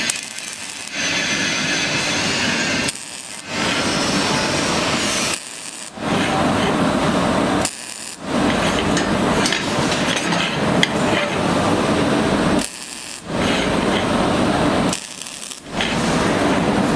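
Semi-automatic (MIG) welding, the arc crackling in repeated runs of a few seconds each with short breaks between them.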